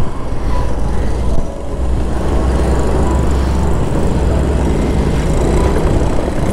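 Motorcycle under way: steady engine and road noise with heavy low wind rumble on the microphone.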